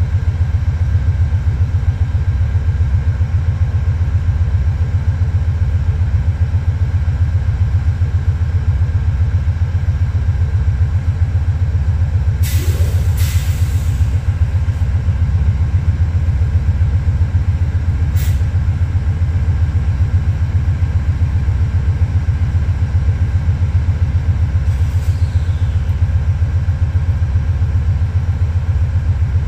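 Diesel locomotive engine running with a steady, pulsing low rumble. About halfway through there is a short double burst of hiss, followed a few seconds later by a click.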